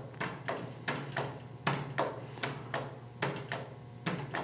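Selection button one on a Royal 650 drink vending machine being tapped over and over, about three sharp clicks a second, stepping through the service-mode menu. A steady low hum runs underneath.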